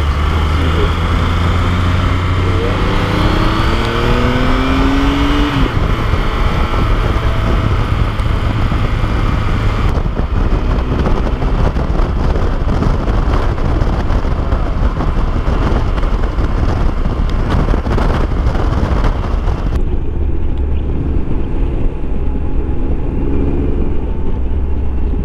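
A motorcycle being ridden: wind rushing over the microphone over a steady low engine drone, with the engine note climbing as it accelerates in the first few seconds.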